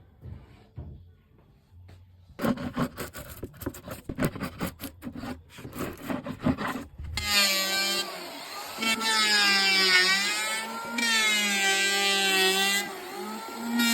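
Quick knocks and scraping on wood, then about seven seconds in an electric woodworking power tool starts and runs with a loud whine whose pitch dips and rises as it cuts into the wood.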